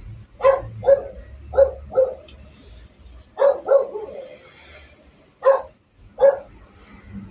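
A dog barking: about eight short barks, several in quick pairs.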